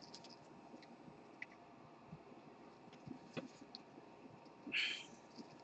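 Faint handling of trading cards: a few light clicks, then a brief rustling swish near the end.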